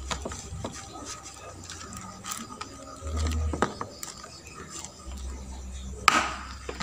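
Plastic welding face shield being handled and fitted together: light clicks, taps and scrapes of plastic parts, with a sharper click about six seconds in.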